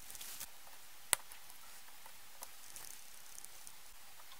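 Faint handling sounds of thin spring wire: a few light ticks, with one sharper click about a second in, as the wire is worked into a small wooden block.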